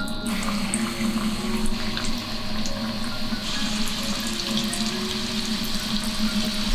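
Sweet potato dumplings deep-frying in hot vegetable oil: a steady sizzling and bubbling hiss that grows stronger about halfway through as the pan fills.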